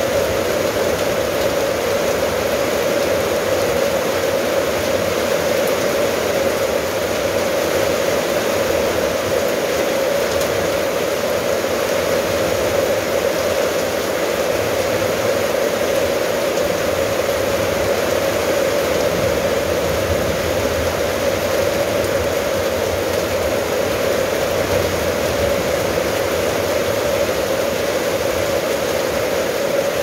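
Steady rain falling on corrugated metal roofing and a wet tiled yard, an even, unbroken hiss with no single drops standing out.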